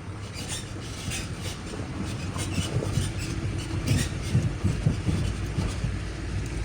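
Dodge Caliber's front suspension creaking repeatedly over a low rumble from the moving car, a cart-like squeak from a ball joint whose torn boot let in water and dirt so its grease has hardened, though the joint has no play.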